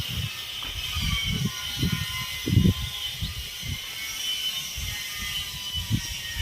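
Storm wind gusting and buffeting the microphone in irregular low rumbles, the strongest gust about two and a half seconds in, over a steady high hiss.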